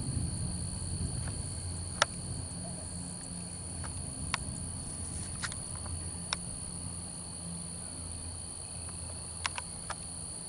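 Steady chorus of crickets, a continuous high-pitched trill, over a low hum, with a few sharp clicks scattered through.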